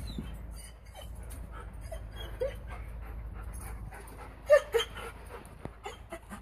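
A dog giving a few short, high whines, the loudest two in quick succession about four and a half seconds in, with small scuffs and clicks between.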